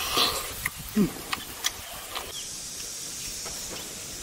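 Close-up eating sounds: scattered soft mouth clicks and smacks, with a short falling hum about a second in. A little past halfway a steady high hiss sets in.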